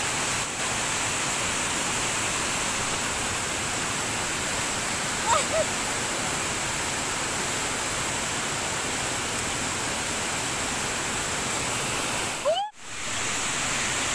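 Waterfall: falling water rushing with a steady, even sound. The sound cuts out for an instant near the end.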